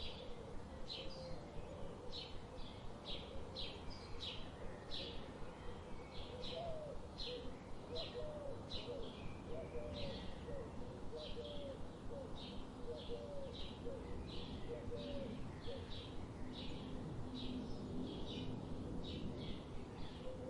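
Birds chirping: short high chirps repeating almost twice a second, with a lower run of short gliding notes through the middle, over a steady background hiss.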